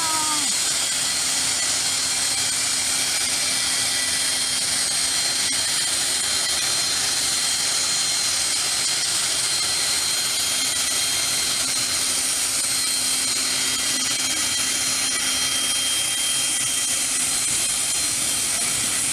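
Aircraft turbine engine running steadily at close range: a loud hiss with a thin high-pitched whine held over it.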